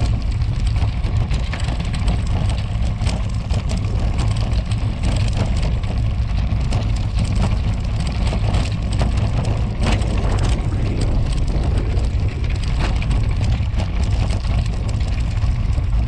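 Road bike riding over cobblestones: a continuous rattling clatter of many small jolts over a steady low rumble.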